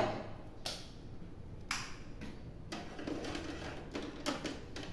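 Light clicks and knocks of kitchen utensils being handled, about half a dozen at irregular intervals.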